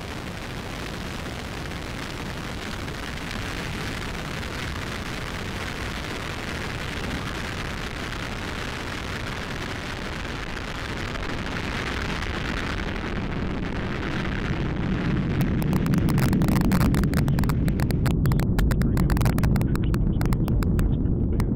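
Atlas V rocket's RD-180 first-stage engine thundering through liftoff and ascent: a steady rushing noise that, about two-thirds through, grows louder and deeper, with rapid crackling.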